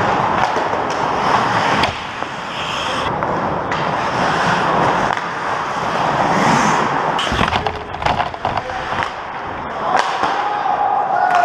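Ice skates scraping and carving on a hockey rink, with sharp clacks of sticks and puck, most of them a little past the middle and again near the end.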